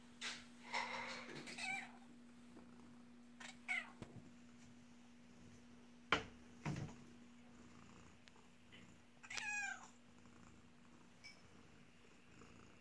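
Domestic cat meowing a few times, with the longest, clearest meow just after nine seconds. A sharp thump about six seconds in is the loudest sound, and a steady low hum runs underneath until it stops near the end.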